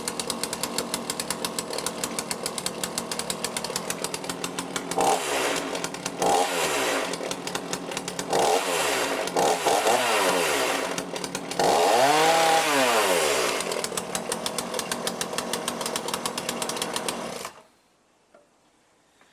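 Two-stroke chainsaw engine, running on a freshly rebuilt and adjusted Walbro carburettor. It idles with a fast even beat and is revved up and back down three times, the last rev the longest. It returns to idle and then cuts off suddenly near the end.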